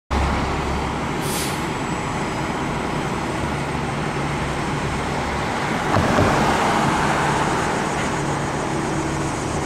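Seagrave Marauder II ladder truck's diesel engine running as the truck pulls out of the station bay. A short hiss of air brakes comes about a second in, and the engine gets louder about six seconds in.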